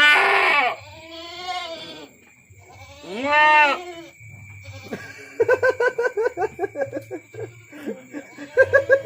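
Goat bleating as it is given an injection: three loud calls in the first four seconds, the last one rising and falling. From about five seconds in comes a quick run of short pulsed sounds.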